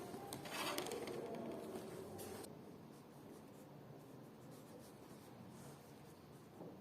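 Light scratching and rubbing, a bit louder for the first two seconds or so and then fainter.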